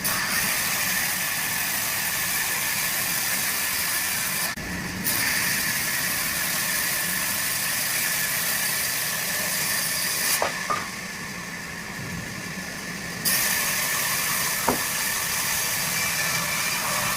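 Sawmill machinery running steadily with a loud hiss and a steady whine. The hiss drops briefly about four and a half seconds in and is weaker for a few seconds past the middle.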